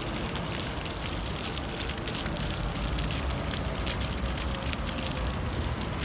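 Water jets of a ground-level floor fountain spurting up and falling back onto the wet stone surface: a steady, irregular spatter of many small splashes, over a low rumble.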